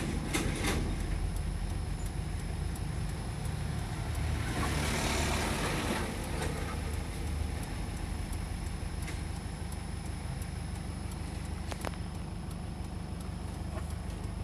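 Vehicle engine idling steadily in slow, stop-and-go traffic, heard from inside the cab, with a brief hiss about five seconds in.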